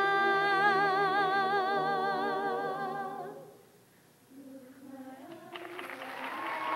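A female soloist holds a long sung note with wide vibrato over sustained choir chords, releasing it about three seconds in. After a brief hush the choir comes back in softly and swells into layered harmony.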